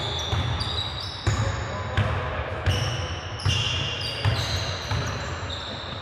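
A basketball being dribbled on a hardwood gym floor, repeated thuds, with sneakers squeaking sharply on the court several times during play.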